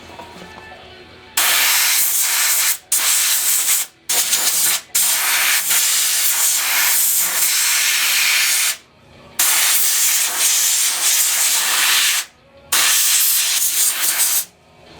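Aerosol can of brake cleaner spraying in about six long bursts with short breaks, washing down the leaking injector pump on a Kubota diesel engine so the leak shows up.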